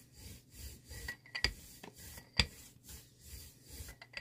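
A rubber brayer rolled back and forth over a gel printing plate, spreading paint with a repeated soft, sticky rasp. Two sharp clicks about one and a half and two and a half seconds in are the loudest sounds.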